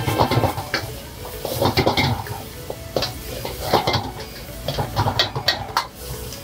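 Steel ladle scraping and knocking against a black iron wok as vegetables are stir-fried, in quick irregular strokes.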